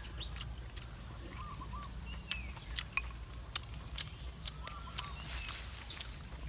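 Small birds chirping in short, scattered calls. Sharp clicks of eating close to the microphone run through it: chewing and crunching roasted chicken. A steady low hum lies underneath.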